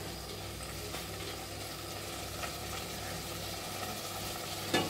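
Diced chicken and onion sizzling steadily in hot oil in a stainless steel pot, browning with spices. A single short click sounds near the end.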